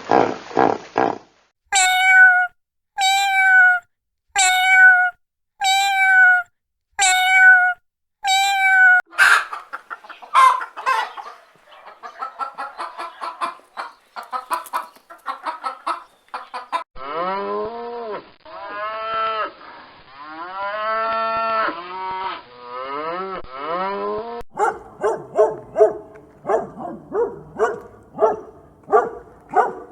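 A run of different animal calls, one animal after another: about seven short, high calls roughly a second apart, then a mixed stretch, then several long, lower calls that rise and fall in pitch, then quick repeated calls near the end.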